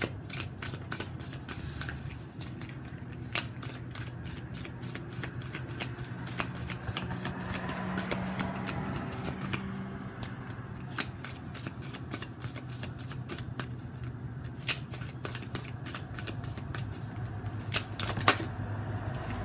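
A deck of tarot cards being shuffled by hand: a fast, uneven run of card clicks and flutters with a few brief lulls.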